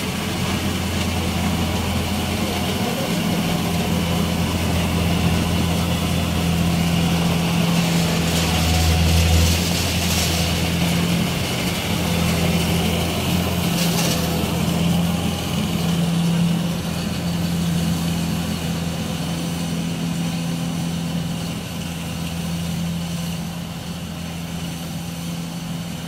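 Rice combine harvester's engine running steadily under load as it cuts and threshes rice: a continuous low drone, a little louder about nine seconds in and easing off slightly near the end.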